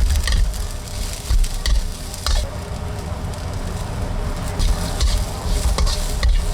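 Fish mint roots (zhe'er gen) being stirred and tossed with chili seasoning, a steady noisy hiss broken by several short clicks.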